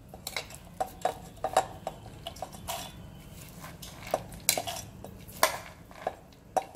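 A steel spoon scoops sprouted moong and moth beans out of a bowl and tips them into a stainless-steel mixer-grinder jar: a run of irregular metallic clinks and clatters as the spoon knocks the bowl and the beans drop into the steel jar.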